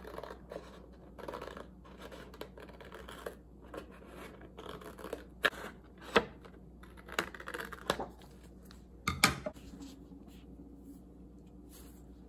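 Close-up handling noises: scratching and rustling broken by several sharp clicks and knocks, the loudest about six and nine seconds in.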